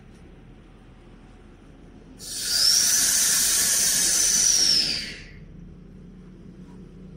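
Air hissing through an opened valve on the lid of a stainless-steel vacuum emulsifying mixer's vacuum tank, with a high whistle that rises a little and then sags. It starts about two seconds in and cuts off about three seconds later. A low steady machine hum runs underneath.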